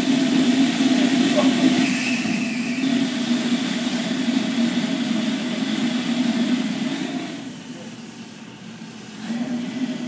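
Small jet engine test rig giving a steady rushing drone with a low hum, as air is fed through it by hose. It drops much quieter for a couple of seconds near the end, then picks up again.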